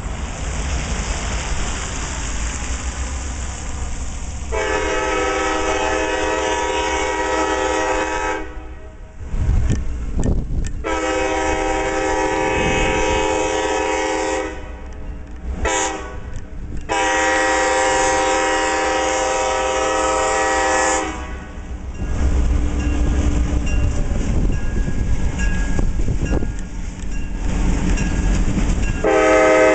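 Diesel locomotive air horn on the lead F-unit sounding the grade-crossing signal: two long blasts, a short one, then a long one, each a chord of several notes. After that the locomotives' diesel engines rumble louder as they reach the crossing, and the horn sounds again near the end.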